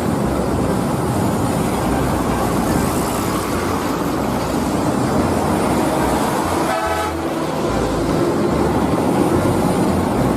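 Steady vehicle engine and road noise, with a short horn toot about seven seconds in.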